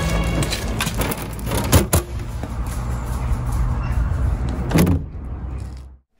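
Background music fades out in the first half second, leaving a steady low rumble and a few sharp clacks, around two seconds in and again near five seconds, from a clear plastic pet-door flap swinging as a beagle pushes through it. All sound cuts off just before the end.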